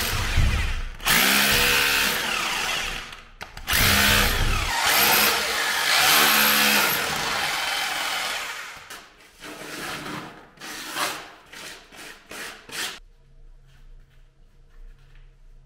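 Electric hammer drill working its bit into old brick and mortar, its motor note dipping and rising under load. It runs in long bursts at first, then in short bursts, and stops about thirteen seconds in.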